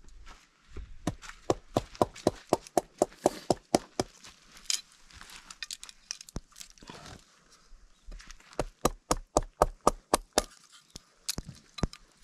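A large machete-like knife chopping rapidly into a dry split log, cutting thin kindling splinters. The strikes are sharp and come about five a second in two quick runs, with a pause between them and a few single chops near the end.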